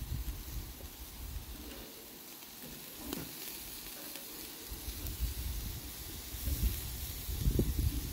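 Beef steaks sizzling on a charcoal grill grate, with a metal tongs click about three seconds in. Low rumbling noise comes and goes underneath, strongest in the second half.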